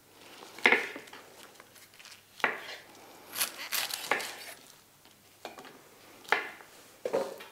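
Kitchen knife cutting vegetables: about eight separate, irregularly spaced knocks of the blade going through and striking down.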